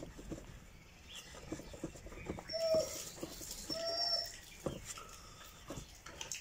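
Small clicks and knocks of a hydraulic hose and its metal fitting sleeve being handled and screwed together by gloved hands. In the middle, two short, pitched squeaky calls come about a second apart.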